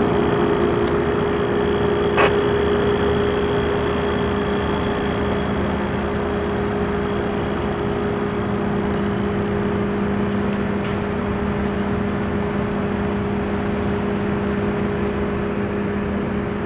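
Refrigerant recovery machine running steadily, its compressor humming as it draws R-22 out of a walk-in freezer's refrigeration system.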